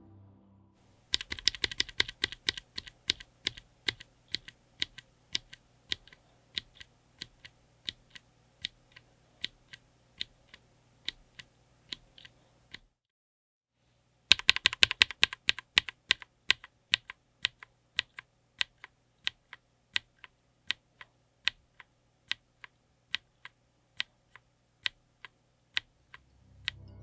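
Mechanical keyboard with Akko Creamy Yellow U1 linear switches being typed on in two takes with a short silent break between them. Each take opens with a quick flurry of keystrokes and then slows to single, evenly spaced key presses, about two a second.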